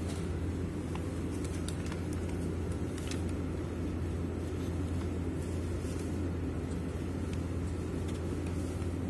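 Steady low mechanical hum of running HVAC plant machinery, with a few faint clicks in the first few seconds.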